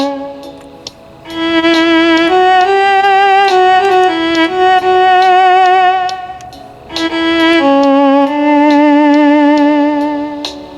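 Roland Aerophone Pro AE-30 electronic wind instrument playing a slow melody. It holds single notes with vibrato, in two phrases separated by short breaths about a second in and near seven seconds.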